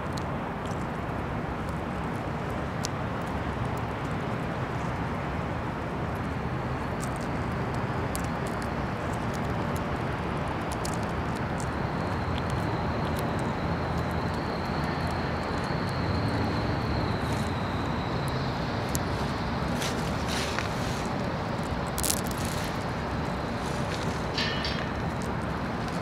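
Steady rushing outdoor background noise, such as wind or distant traffic. A faint thin high tone is held for several seconds midway, and a few sharp ticks come near the end.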